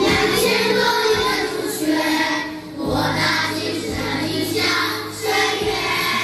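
Children's choir singing with musical accompaniment, in phrases broken by short pauses for breath.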